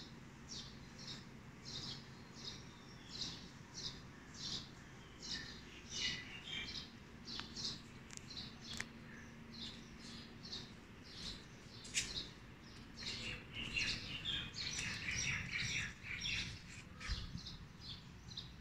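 Small birds chirping: one short high chirp repeats steadily, about three every two seconds. Past the middle it gives way to busier chattering calls. A faint steady low hum runs underneath, and there is one sharp click near the middle.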